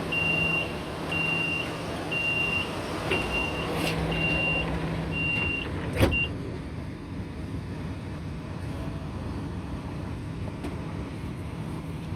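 Shanghai Metro Line 14 train's door-closing warning: a string of short high beeps about once a second, then the doors shut with a sharp thud about six seconds in, leaving the steady rumble of the train.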